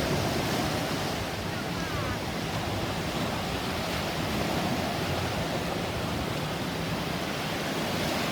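Steady rush of sea surf and wind buffeting the microphone, with a low steady hum underneath.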